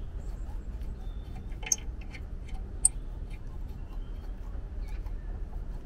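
Scattered light metal clicks and ticks from hand work with tools and a lug nut on a wheel stud whose threads are being re-cut, two of them sharper about two and three seconds in. A steady low rumble runs underneath.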